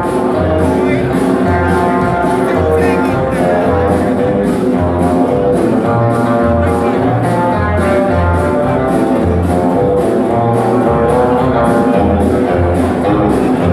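Live rock and roll band playing with no vocals: guitar over pulsing bass notes and drums with a steady beat of about two cymbal strokes a second.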